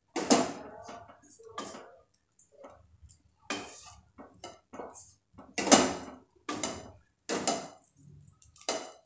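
A wooden spatula scraping and knocking against a pan while stirring poha (flattened rice). The strokes come about once a second, the loudest about halfway through.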